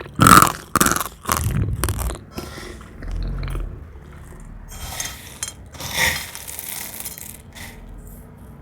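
Brittle dried cornstarch film cracking and crunching: a quick run of sharp crackles in the first two seconds, the first the loudest, then softer crackles around five and six seconds and once more near the end.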